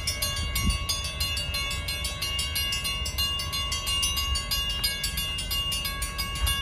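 Railroad grade-crossing warning bells ringing in rapid, even strokes as the crossing signals flash, over a steady low rumble.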